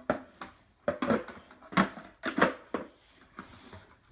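Parts of a penguin cool-mist humidifier being handled and fitted together: a string of sharp clicks and knocks, several a second, easing off near the end.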